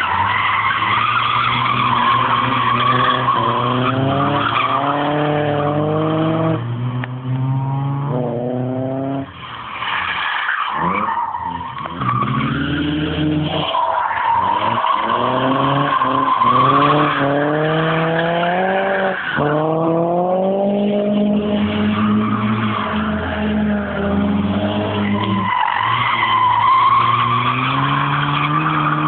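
Rear-wheel-drive car drifting: the engine revs up in repeated rising sweeps with brief lifts between them, over continuous tyre squeal.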